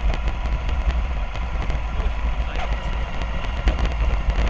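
Radio-controlled model double-decker bus running, a steady hum with faint whining tones, under heavy wind rumble on the microphone.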